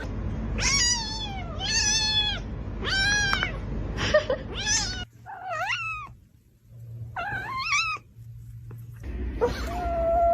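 A cat meowing repeatedly, about seven short calls in quick succession. Most fall in pitch, a couple rise, and a longer meow starts near the end.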